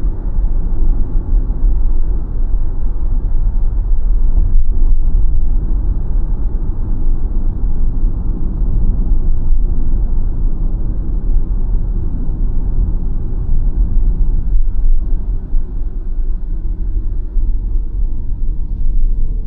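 Steady low road and tyre rumble of a BYD Sealion 7 dual-motor electric SUV driving, with no engine note.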